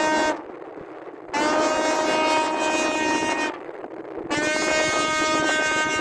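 A ship's horn sounding long, steady blasts. One blast ends just after the start, then two more of about two seconds each follow, about a second apart.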